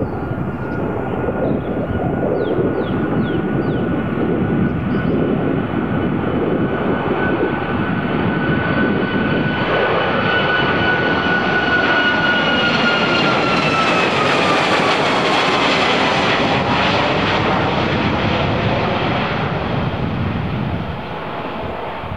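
Boeing 737 MAX's two CFM LEAP-1B turbofans at take-off thrust. The jet noise with a steady fan whine grows louder as the airliner climbs out overhead. The whine drops in pitch as it passes, and the sound fades as it flies away.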